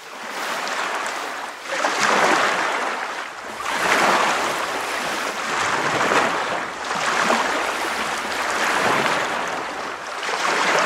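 Lake water rushing and splashing in waves that swell and ease about every two seconds.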